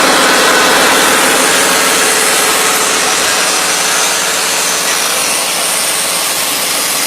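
Abon (meat floss) shredding machine running steadily, its motor and shredder making a dense, even mechanical noise with a fast fine rattle.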